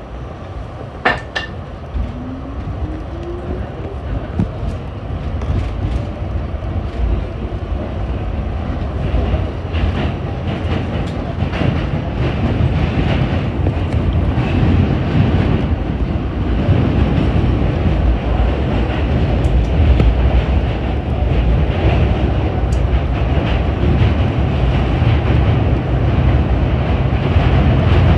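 Subway train pulling out of a station and gathering speed into a tunnel: a few sharp clicks at the start, a rising motor whine about two seconds in, then a steady rumble and rattle of wheels on rail that grows louder as the train speeds up.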